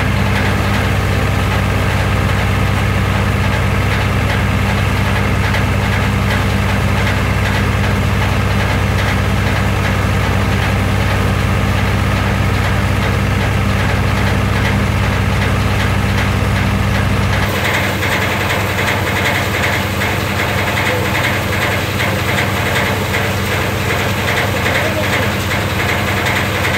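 Engine-driven paddy-wheat multicrop thresher running steadily, a constant deep machine hum. About two-thirds of the way through the deep hum drops away abruptly, leaving a thinner, higher rattle.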